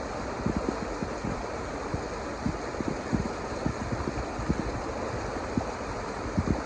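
Steady rushing noise with soft low thumps scattered irregularly through it.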